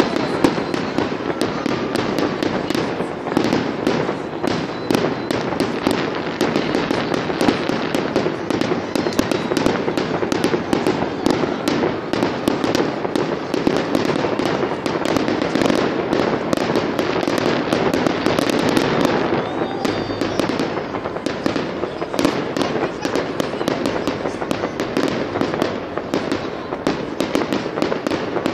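Fireworks display: a rapid, unbroken barrage of aerial shells bursting, with dense crackling between the bangs.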